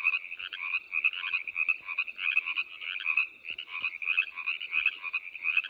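A chorus of frogs calling: many short, pulsed croaks overlapping in a steady run, about two calls a second.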